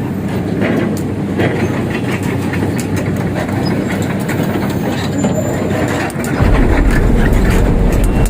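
A heavy diesel vehicle running, with a steady rattling clatter. A much deeper rumble sets in about six seconds in.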